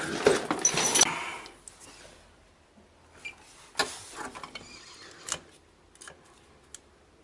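Rustling handling noise, then a few separate small clicks as a multimeter's test leads are put to the terminals of a refrigerator compressor's start relay to measure its resistance.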